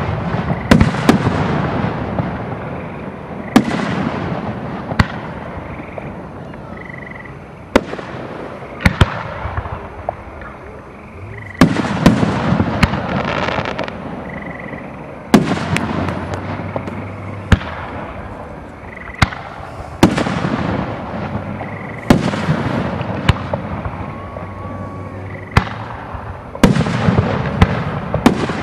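Aerial fireworks shells launching and bursting in a professional display: a series of sharp bangs every one to three seconds, sometimes two in quick succession, each trailing off in a long echoing rumble.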